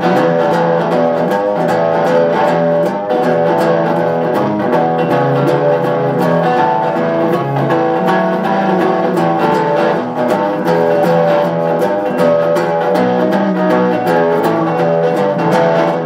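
Instrumental break of a rockabilly song: guitars playing over a steady beat, with no singing.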